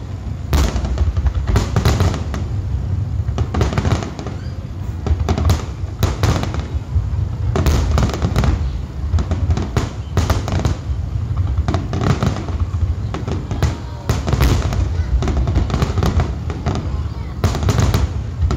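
Dense barrage of aerial firework shells bursting, several sharp bangs a second over a continuous low rumble.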